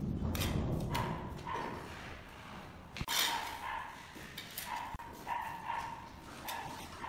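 Mason's trowel scraping mortar and knocking on brick, with one sharp knock about three seconds in. A run of short, repeated yelps sounds in the background throughout.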